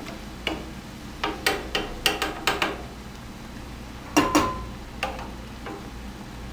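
Stainless steel slotted spoon clinking against a frying pan while plantain slices are turned and lifted out of hot oil: a quick run of sharp clicks, then about four seconds in two louder knocks with a brief metallic ring as the spoon strikes the glass draining bowl.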